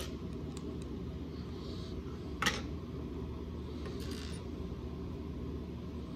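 Plastic Lego bricks clicking and tapping as they are handled and set down, with one sharper click about two and a half seconds in. A steady low hum lies underneath.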